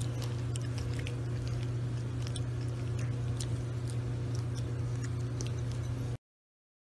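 Bulldog puppy eating dry kibble from a glass bowl: irregular crunches and clicks over a steady low hum, stopping abruptly about six seconds in.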